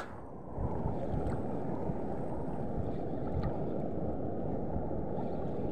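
Steady low rushing noise of wind buffeting the microphone, setting in about half a second in.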